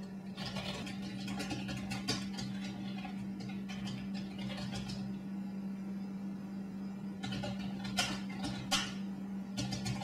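Computer keyboard keys clicking as a message is typed, in quick runs of keystrokes with a pause of about two seconds in the middle, over a steady low hum.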